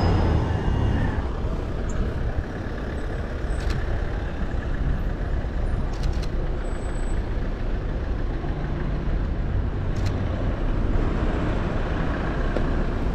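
Road traffic passing close by: a steady rumble of car engines and tyres, with three short faint clicks.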